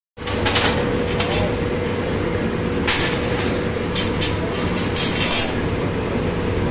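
Steady workshop machinery hum with a constant tone, running beside a fiber laser cutting machine. Several brief, sharp high noises come and go as cut metal parts are lifted off the slatted cutting bed, clustered around three, four and five seconds in.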